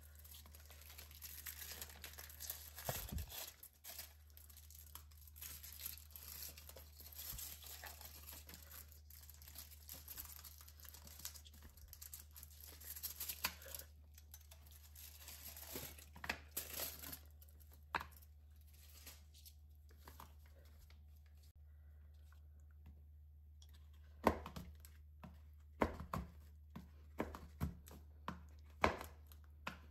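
Foil and paper wrapper crinkling and tearing as a bar of white chocolate is unwrapped. Near the end, a knife chops through the chocolate onto a wooden cutting board in sharp, irregular chops.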